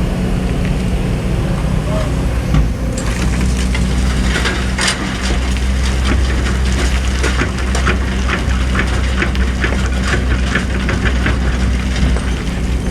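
Excavator diesel engine running steadily, with a quick run of sharp clattering and scraping sounds from about three seconds in.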